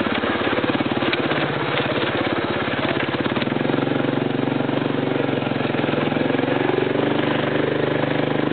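Motorcycle engine running as the bike is ridden. Its pulsing note evens out into a smoother, steadier drone about three and a half seconds in.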